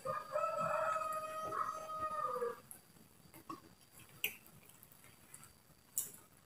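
A rooster crowing once: a single held call about two and a half seconds long that drops in pitch at the end. A couple of short clicks of eating follow later on.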